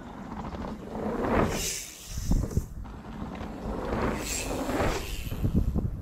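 Two mountain bikes riding past close one after the other, knobby tyres rolling on a dirt trail with a rush of air; each pass swells and fades, with low thuds as the wheels hit the ground.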